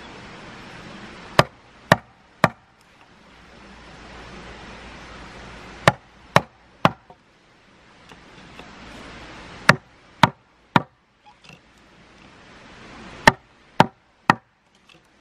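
Wood being chopped with a bladed tool: sharp strikes in four sets of three, about half a second apart, with a pause of a few seconds between sets.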